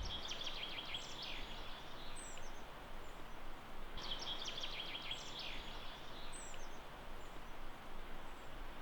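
A songbird singing a short, rapid phrase twice, about four seconds apart, over a steady rush of forest background noise.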